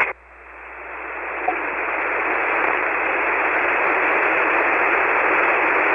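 Shortwave band noise: the steady hiss of a ham transceiver's SSB receiver tuned to 7.188 MHz on 40 metres, with no signal on the frequency. The hiss is thin and band-limited, like a phone line. It drops away at first, swells back up over the first couple of seconds, then holds steady.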